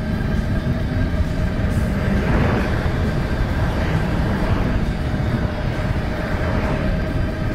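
Steady low rumble of a moving vehicle, with a constant hum above it and a few brief swells of hiss.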